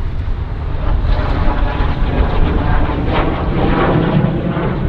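Propeller airplane flying overhead, its engine sound steady and growing a little louder.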